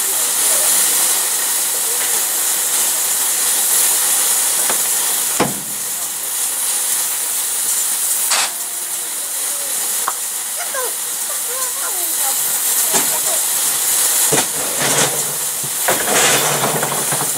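Narrow-gauge steam locomotive standing and hissing steam steadily, with a few sharp clicks about five and a half and eight and a half seconds in, and more near the end.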